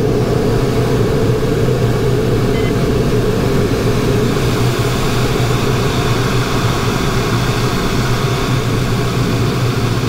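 Steady rush of airflow inside a sailplane's cockpit in unpowered gliding flight, loud and even throughout.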